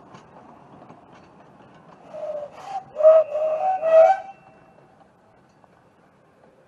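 Narrow-gauge steam locomotive whistle sounded about two seconds in: a short blast, then a longer blast broken into several pulses, over the faint running noise of the departing train.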